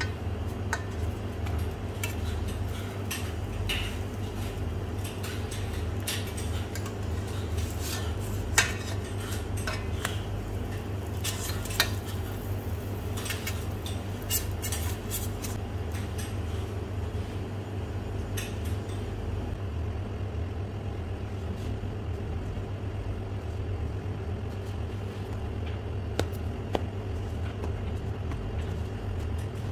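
Metal spatula scraping and clicking against a stainless steel frying pan as pancakes are turned, with scattered sharp clinks, the loudest about eight and twelve seconds in. A steady low hum runs underneath.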